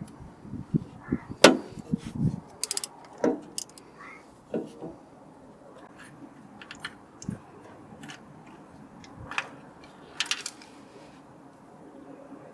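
Hand tools and metal parts being handled: scattered knocks and clicks, heavier in the first couple of seconds, with brief metallic jingling about three seconds in and again about ten seconds in.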